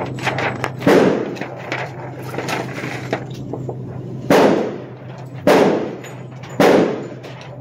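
Gunshots on an indoor range, ringing in the hall: one shot about a second in, then three in a row about a second apart in the second half.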